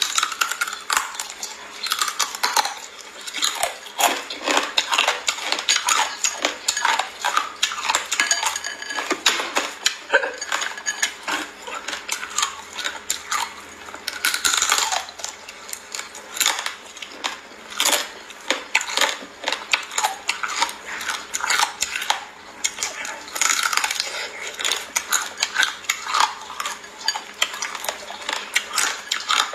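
Close, irregular crunching and clicking of small raw live crabs being bitten and chewed, with crab shells clattering against a glass bowl.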